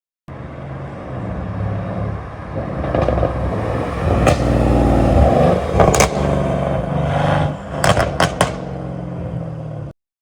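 Mercedes-AMG C63 S's twin-turbo V8 revving up and settling back, with sharp exhaust pops and crackles on the overrun from a pop-and-bang ECU tune. There are single cracks around four and six seconds in and a quick burst of four pops about eight seconds in.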